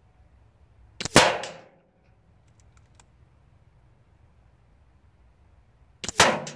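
Air Arms S510 SL Carbine .22 pre-charged pneumatic air rifle fired twice, about five seconds apart, each a sharp report with a short tail. A faint click falls between the shots.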